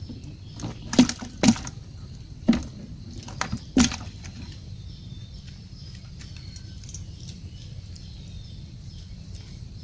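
Slatted fish trap being shaken and knocked against a plastic bucket to tip the catch out: about five sharp rattling knocks in the first four seconds, then only steady background noise.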